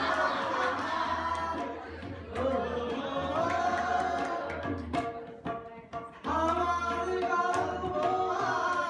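A man singing a song into a microphone, accompanied by tabla. The voice breaks off for about a second just past the middle, leaving the drum strokes, then the singing resumes.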